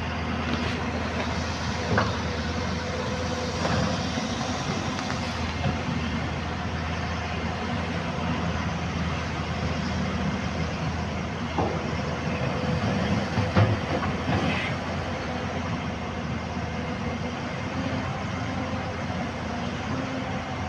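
Heavy construction machinery's diesel engine running steadily, with a few short knocks now and then.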